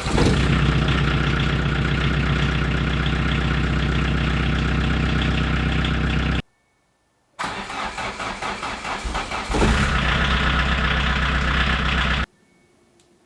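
VW Jetta Mk2's 1.6-litre four-cylinder diesel engine running steadily until it cuts off suddenly about six seconds in. It then cranks unevenly for about two seconds, catches and runs louder until it cuts off again near the end.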